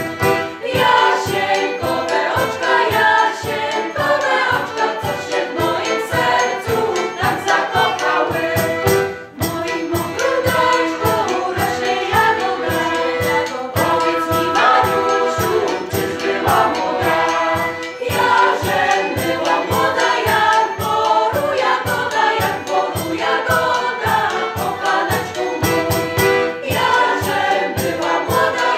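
Women's folk choir singing a Polish folk song, accompanied by violin, accordion and a bass drum keeping a steady beat. The music drops out briefly about nine seconds in.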